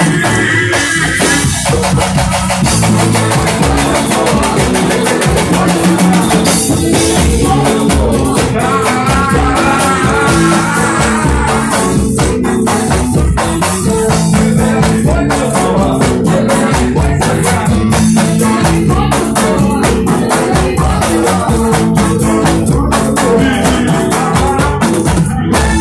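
A pagodão band playing loud and live through a sound system, with a dense, driving beat of drums and percussion under electric guitar and a voice singing in places.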